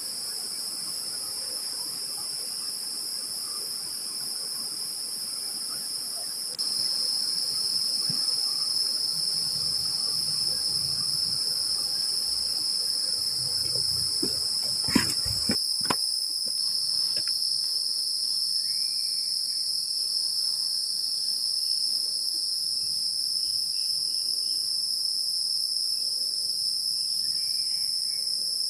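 Forest insects droning steadily in a high-pitched, unbroken chorus, which steps up in level about a quarter of the way in. A couple of sharp knocks sound about halfway through.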